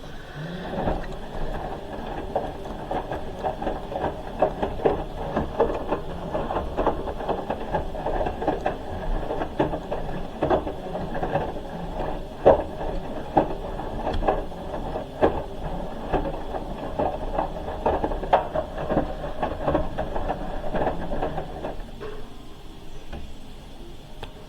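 Hoover H-wash 300 Plus washing machine turning its drum mid-wash: a steady motor hum with many irregular knocks and patters as the wet load tumbles. It starts about half a second in and stops a couple of seconds before the end, as the drum pauses.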